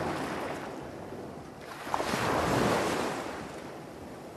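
Sea surf washing in, swelling twice, with one short sharp click about two seconds in.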